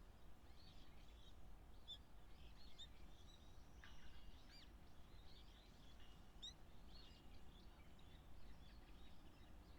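Faint, high, thin bird chirps and short calls scattered throughout, over a low steady background hum.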